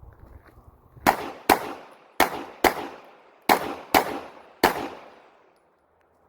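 Glock 34 Gen 5 9mm pistol firing seven rapid shots: three quick pairs about half a second apart, with short pauses between them as the shooter moves between targets, then a single last shot.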